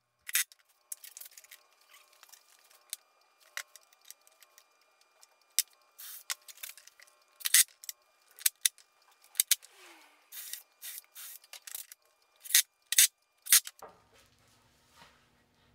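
Irregular sharp clicks and light metallic clatter from tools, screws and galvanized pipe flanges being handled on a workbench, with the loudest clicks about halfway through and again near the end.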